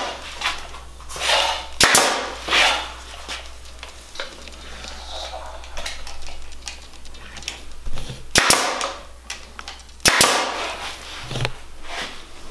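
Pneumatic brad nailer firing three sharp shots into willow rods, the second and third close together near the end, with willow rods rustling and scraping against the chair frame in between.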